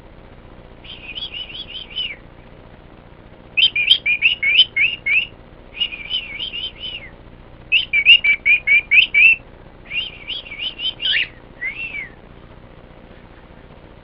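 Male cockatiel chirping in quick strings of high, warbling notes. There are about six bouts, each a second or so long, with short pauses between them.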